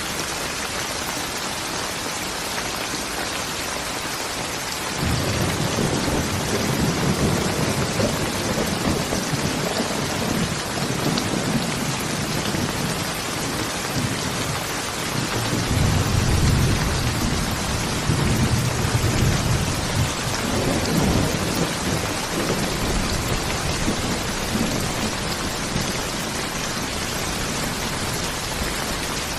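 Steady rain with thunder. A long, low rumble of thunder comes in about five seconds in, swells around the middle and dies away near the end.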